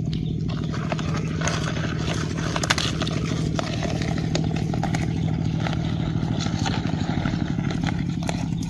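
An engine running steadily at an even pitch, with scattered light rustles and clicks in dry leaf litter over it.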